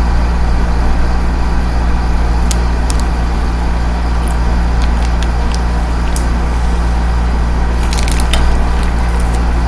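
Steady low hum, with a few faint clicks and a short cluster of them about eight seconds in.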